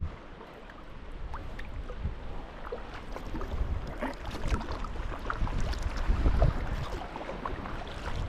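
Wind buffeting the microphone in a low, uneven rumble, with water splashing and dripping around a sea kayak as it is paddled.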